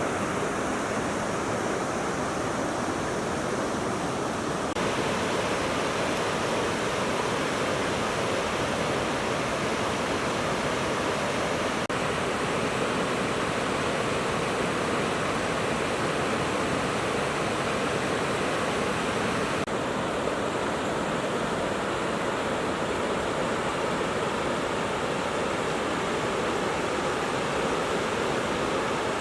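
Fast-flowing mountain river, a steady rush of water whose tone shifts abruptly twice, about 5 and 20 seconds in.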